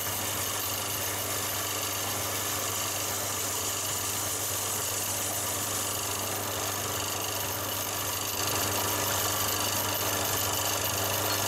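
Wood lathe running steadily with a low motor hum while a skew chisel and a 13 mm sizer cut the base tenon on a spinning maple spindle. The sound gets a little louder about eight and a half seconds in.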